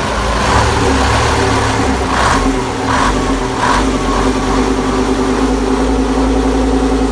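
Nissan RF10 V10 diesel marine engine running steadily in a boat's engine room, with three short rushing surges about two, three and three and a half seconds in.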